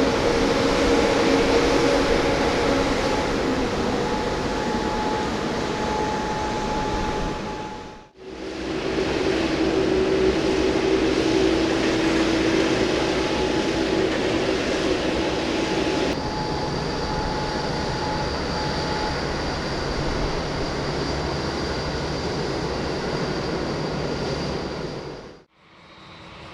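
Boeing 787 turbofan engines, General Electric GEnx and Rolls-Royce Trent 1000, running at low taxi power: a steady roar with a few held whining tones. The sound cuts out briefly about eight seconds in and again near the end, and the tones shift about halfway through.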